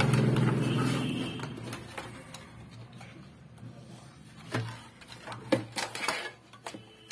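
Light clicks and knocks of a CRT TV's circuit board and its plastic cabinet being handled, with wires and connectors rattling, a few sharper knocks in the second half. In the first second or two a vehicle engine's drone fades away.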